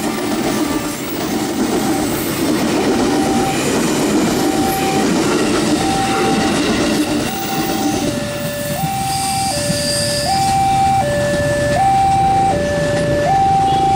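A KRL Commuter Line electric train rumbles past over the rails while the level crossing's electronic warning alarm beeps at a steady rhythm. About eight seconds in, the wheel noise fades and the alarm goes on as an alternating two-tone beep.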